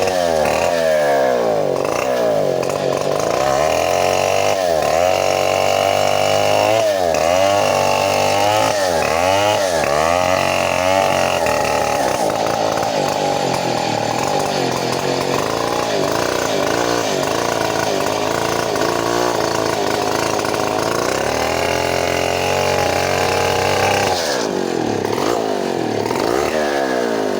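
Stihl 070 two-stroke chainsaw running at high revs while splitting a very old teak log lengthwise, its engine pitch wavering under the load of the cut.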